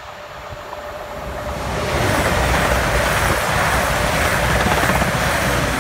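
Passenger train passing through the station at speed on the nearest track: a rush of wheel and air noise that builds over the first two seconds, stays loud, and falls away near the end.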